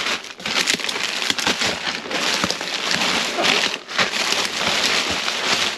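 Plastic-wrapped packages of sliced pepperoni crinkling and rustling as they are handled and gathered up, a dense crackle of many small clicks.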